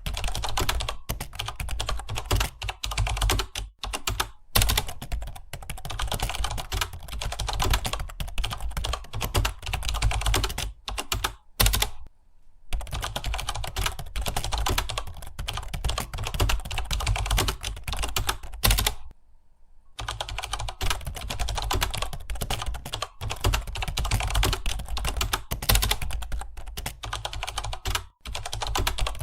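Fast, continuous typing on a computer keyboard, a steady stream of key clicks that stops briefly twice, about a dozen seconds in and again a little past the middle.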